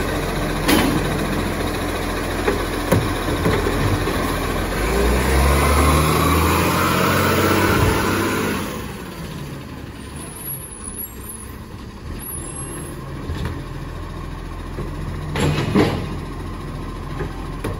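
Iveco Acco side-loader garbage truck's diesel engine running while its automated arm tips a bin, then revving with a rising note as the truck pulls away past, dropping off sharply after about eight seconds and carrying on quieter down the street. A couple of brief sharp noises near the end.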